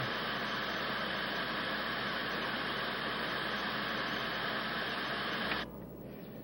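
Steady hiss of television static from an untuned set, which cuts off suddenly near the end.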